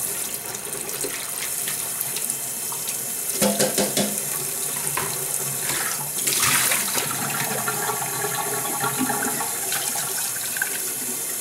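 Kitchen tap running into a stainless steel sink while a glass jar is scrubbed and rinsed under the stream. There are a few sharp knocks about three and a half seconds in, and the splashing gets louder for a moment around six seconds.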